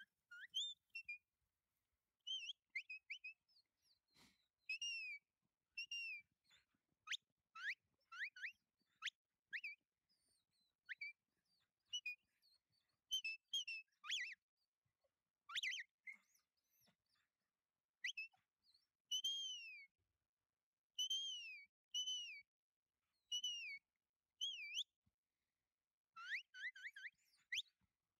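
Sheepdog handler's whistle commands to a working kelpie: short whistled notes that slide up, slide down or rise and fall, given in quick clusters every second or two.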